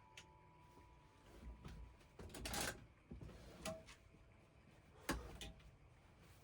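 Faint clunks and a short scraping rustle from seat hardware being handled during a swivel seat install, with a sharper knock about five seconds in.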